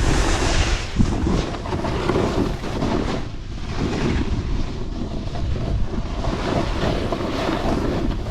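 Wind buffeting the microphone of a moving skier: a steady rushing noise with a rumbling low end, mixed with the hiss of skis running over snow.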